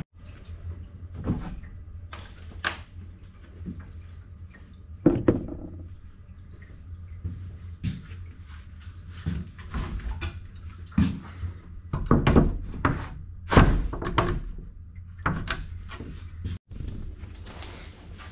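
Irregular knocks and clunks of boxing panels and fittings being handled and put back in a duct behind toilets, some loud, over a steady low hum.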